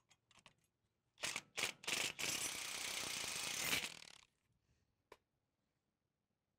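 Cordless impact wrench driving a chain roll plate bolt into a corn head's stalk roll shaft: a few light clicks, two short bursts, then a steady hammering run of about two seconds that stops sharply.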